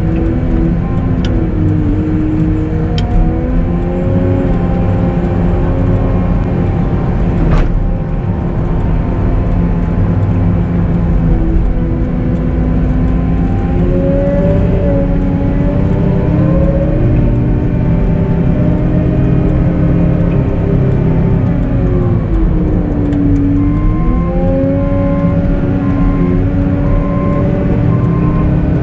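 Cat 906M compact wheel loader's diesel engine running under load, its pitch rising and falling as the revs change. Near the end a backup alarm beeps in an even on-off rhythm as the loader reverses.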